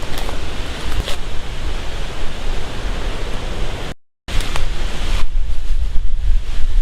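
Storm wind buffeting the microphone with a heavy, gusting low rumble over a steady rushing noise. The sound cuts out completely for a split second about four seconds in.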